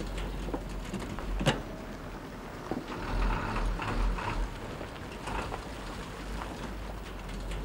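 Metal milk churns knocking and clanking as they are handled and loaded onto a milk truck, one sharp knock about a second and a half in the loudest, over a low engine rumble.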